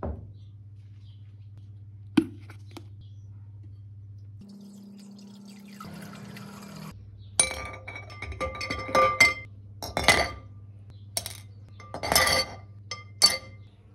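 A glass bowl set down on a wooden table, then liquid poured into it for about two seconds. Corroded brass statue pieces are then lowered into the bowl, clinking sharply against the glass and splashing, about eight times.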